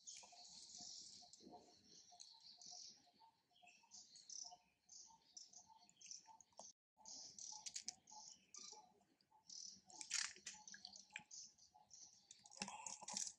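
Faint, irregular clicking and crunching of a macaque biting and chewing an ear of corn in its husk, with a louder cluster about ten seconds in and another near the end.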